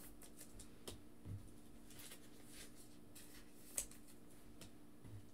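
Near silence: faint room tone with a steady low hum and a few faint, short clicks.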